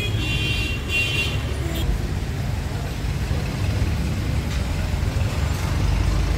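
Street traffic: a steady low rumble of passing cars and engines. A high-pitched tone with several pitches sounds twice in the first two seconds.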